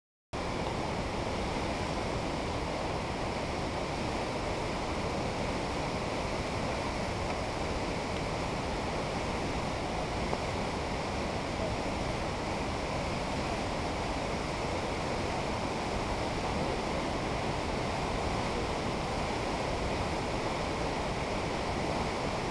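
Fast-flowing whitewater river rushing over rocks: a steady, even rush of water.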